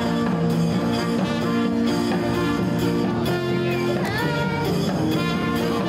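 Music, with held notes that change every second or so.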